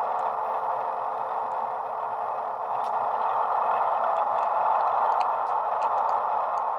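Hornby HM7000 sound decoder playing an HST diesel sound file with the MTU engine option through the small speaker of a model Class 08 shunter: a steady engine drone, with a few faint light ticks in the second half.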